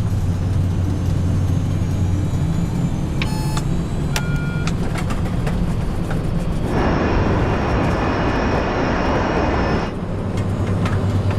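Steady low drone of an airliner in flight, heard as cockpit ambience, with two short electronic tones about three and four seconds in. From about seven to ten seconds a loud rushing noise swells over it and then cuts off.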